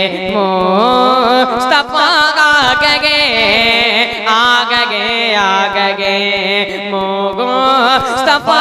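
A boy's voice singing a naat into a microphone: long, ornamented phrases without clear words, the melody sliding up and down through held notes over a steady low note.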